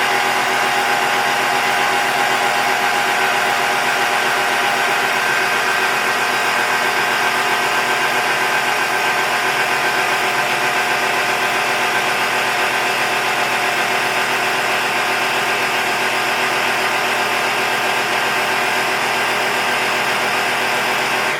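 A set of air horns blasting in one long, loud, unbroken chord of several steady tones, cutting off suddenly at the end. The blast reads about 128 dB on a sound level meter at one metre.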